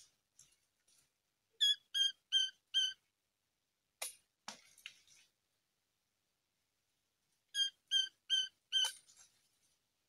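Bush babbler fledgling calling: two runs of four short, evenly spaced cheeps, about three a second, the first run about a second and a half in and the second near the end. A brief rustle falls in between.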